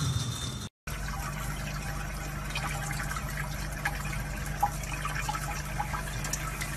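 Water running steadily from a tap into a sink over a wet cat. It starts just under a second in, after a brief break.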